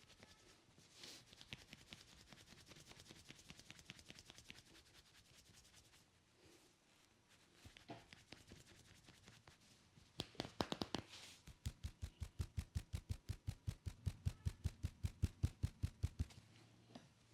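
Hands working a head massage: fingers rubbing and scratching through the hair with a fast patter of faint clicks, then, about ten seconds in, a rapid, even run of hand strikes on the head, about eight a second, each with a dull thump, stopping a second before the end.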